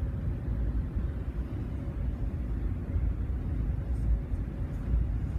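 Wind buffeting the microphone on a moving ferry's open deck: a low rumble that swells and dips unevenly, with a faint steady hum beneath it.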